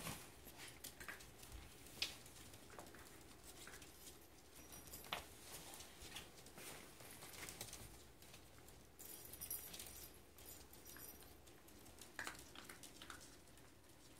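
Faint, scattered clicking and pattering of pocket beagle puppies' claws and paws on a hard floor as they move about, with a few sharper taps.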